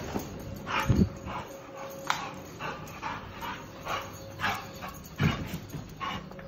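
American Staffordshire terrier moving about and climbing onto furniture: a series of short, quick sounds, roughly two a second, with two dull thumps, one about a second in and one near the end.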